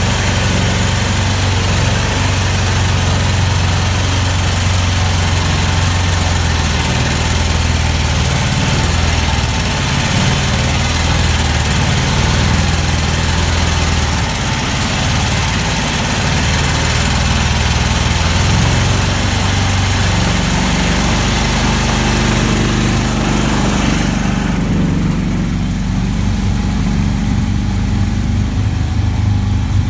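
Engine of an all-terrain vehicle on big low-pressure tyres running under load as it crawls through mud, its pitch shifting and dipping as it drives. About three-quarters of the way through, the hiss above the engine falls away, leaving the engine's lower sound.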